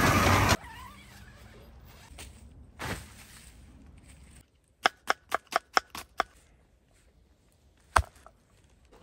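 A brief burst of van driving noise that cuts off after half a second, then a quick run of about seven sharp clicks, and one loud, sharp knock on a wooden cutting board near the end.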